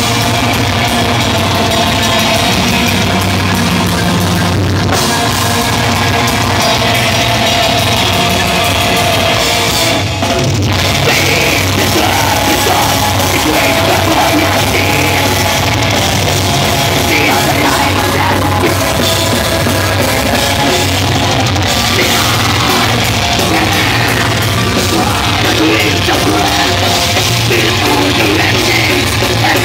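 Black metal band playing live at full volume: distorted guitars and a drum kit, with harsh yelled vocals over the top.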